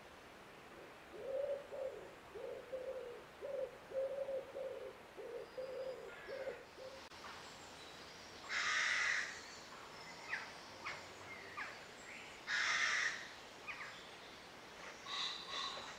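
Woodland birdsong: a dove cooing in a rhythmic series of low phrases through the first half, then two loud harsh caws from rooks, with short chirps from smaller birds between them and near the end.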